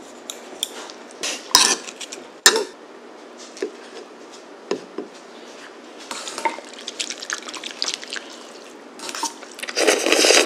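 Chopsticks and spoons clinking against ceramic bowls and a plate during a meal of soba noodles in broth and kimbap: scattered light clicks, with a louder, noisier stretch of eating sounds near the end.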